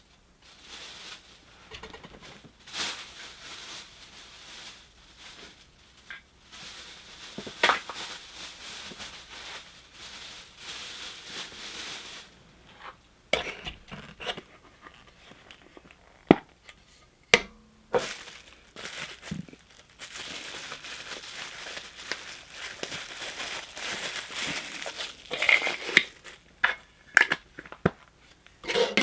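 Packaging being handled: crinkling and rustling with scattered sharp clicks and knocks at irregular moments, a few louder knocks past the middle and a busier crinkly stretch near the end.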